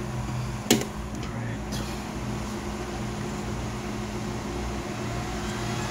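A sharp click a little under a second in, then the Taramps HD 3000 car amplifier's cooling fan running steadily with a low hum as the repaired amp powers up.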